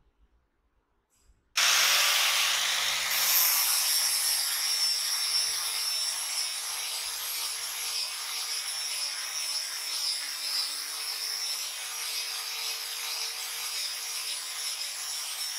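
Electric angle grinder with a flap disc grinding the end of a wooden beam: a high motor whine over a steady rasping grind. It starts suddenly about a second and a half in, loudest at first.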